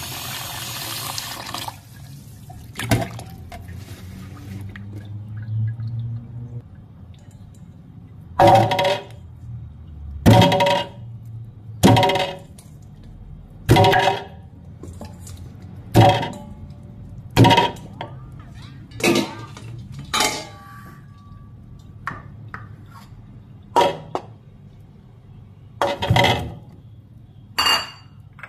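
A tap runs into a stainless steel pot for about two seconds. Then come about a dozen separate knocks, each with a short metallic ring from the pot, one every second and a half to two seconds, as chunks of winter melon are dropped into it one by one.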